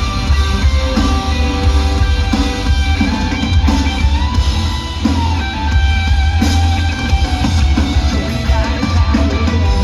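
Rock band playing live through a PA: electric guitar and drum kit over a heavy low end, in an instrumental stretch without vocals.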